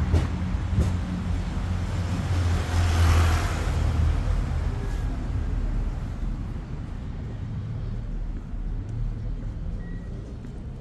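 A motor vehicle driving past on the street, loudest about three seconds in and then fading away, over a steady low rumble of street traffic.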